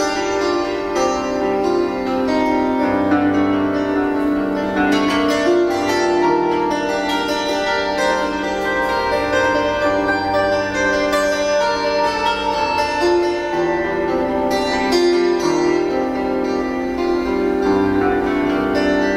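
Bandura played solo: a rapid run of plucked strings over lower held notes, an improvisation.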